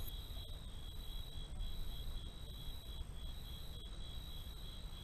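Crickets chirping steadily in a fast, even pulsing trill, over a low rumble with a few faint clicks.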